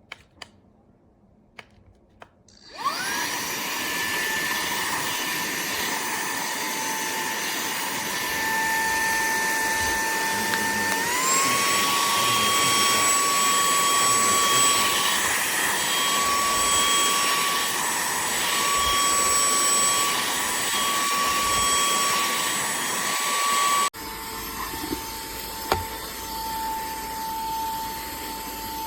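A few light clicks, then a cordless handheld vacuum's motor spins up with a rising whine and runs steadily at a high whine with rushing air. About a third of the way in the whine steps up in pitch, and near the end the sound changes suddenly to a quieter, lower whine.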